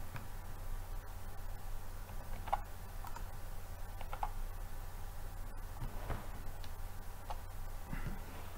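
A few scattered clicks and taps of a computer mouse and keyboard as a number is typed into a field, over a steady low hum.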